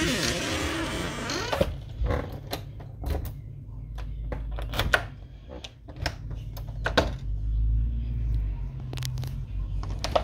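A door creaking open with a wavering squeal that fades about a second and a half in, then scattered footsteps, clicks and knocks over a low rumble.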